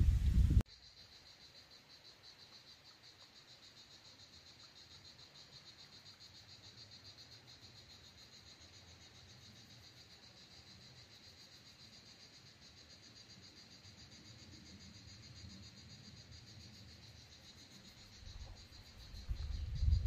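Faint, steady, high-pitched buzzing of insects with a fine rapid pulse, running on without a break. A low rumble cuts off about half a second in, and low rumbling comes back near the end.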